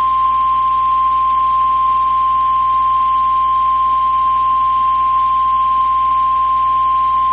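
NOAA Weather Radio warning alarm tone, a single steady tone of about 1050 Hz heard through a radio receiver. It is the attention signal that comes before a weather warning message is read out.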